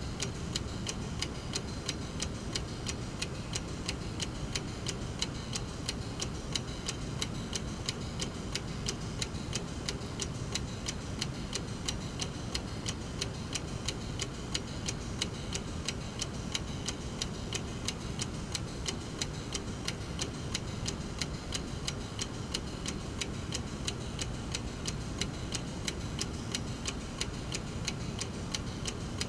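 Brass mechanical clock movement ticking at its escapement: a quick, even run of sharp ticks that holds steady throughout.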